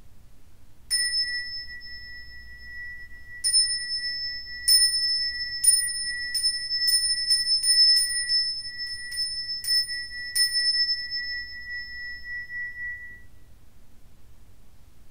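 Small handheld bowl bell (inkin) struck about fourteen times with a clear, high ring. The first few strikes come a second or more apart, then a quicker run of strikes follows. The ringing fades out a few seconds after the last stroke.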